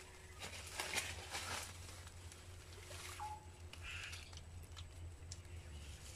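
A knife blade scraping and clicking against cacao bark a few times in the first second and a half, as the T-shaped cut is worked open for a bud graft. A bird calls briefly about four seconds in.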